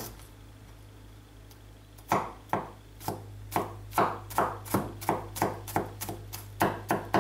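Chef's knife finely chopping garlic on a wooden cutting board: quick, even knife strikes, about three a second, starting about two seconds in.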